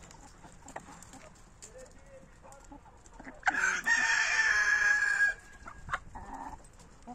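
A rooster crowing once, a loud call of nearly two seconds about halfway through, among quieter clucking of chickens.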